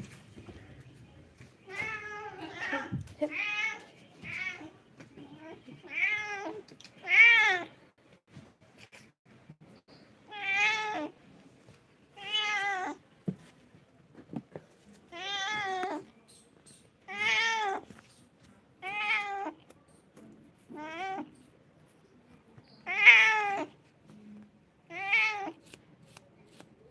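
A kitten meowing over and over, about fourteen short high-pitched meows each rising and falling in pitch, coming every one to three seconds.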